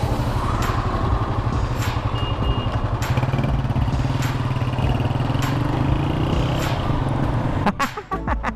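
Motorcycle engine idling with a steady low rumble, which breaks up briefly near the end as the bike moves off.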